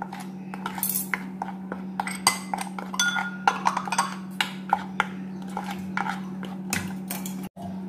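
Metal spoon stirring a dry flour mix in a plastic bowl, with repeated quick scrapes and clicks of the spoon against the bowl.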